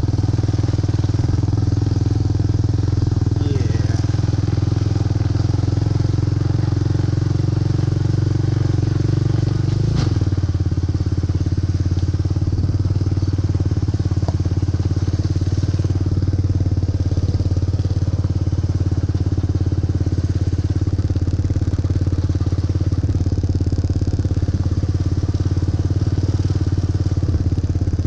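Four-wheeler (ATV) engine running steadily during a ride, with a brief click about ten seconds in where the engine note shifts slightly.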